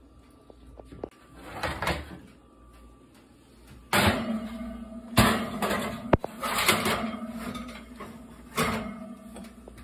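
Oven door opening and a metal baking sheet sliding onto the oven rack: a run of clanks and scrapes of metal on metal, loudest from about four seconds in.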